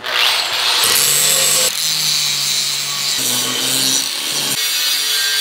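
Angle grinder with an abrasive disc grinding down a stick-weld bead on a steel tube. The hiss of the disc on metal runs steadily over the motor's hum, whose pitch shifts a few times.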